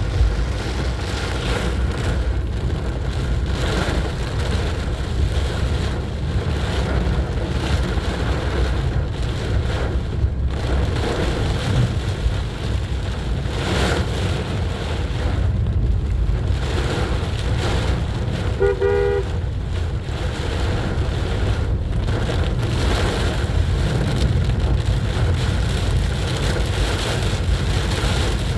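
A car driving through heavy rain and standing water: a steady rush of rain and tyre spray over a low road rumble. A car horn toots briefly about two-thirds of the way in.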